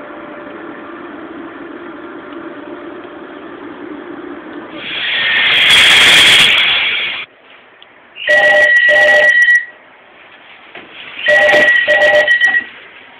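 A telephone ringing twice, each ring a quick double pulse about three seconds after the last, in the British ring pattern. Before it, a steady drone is followed by a loud rushing hiss lasting about two seconds.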